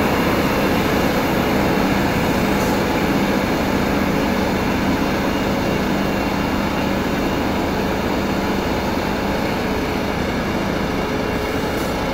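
Heavy diesel engines running steadily as a multi-axle heavy-haul transporter moves along with a dump truck alongside: a continuous low drone with a steady hum, easing slightly toward the end.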